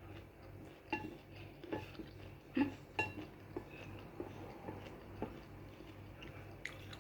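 Eating utensils clicking and clinking against a dish, about six sharp knocks with a brief ring, bunched in the first half and sparser later, over a low steady hum.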